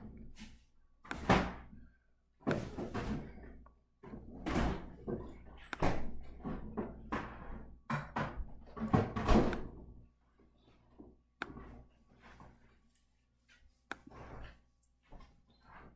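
A run of irregular knocks and thuds, busiest in the first ten seconds, then a few single sharp clicks.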